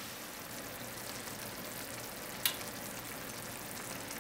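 Chicken thighs with green beans and Brussels sprouts sizzling steadily in a cast-iron skillet, with one sharp click a little past halfway.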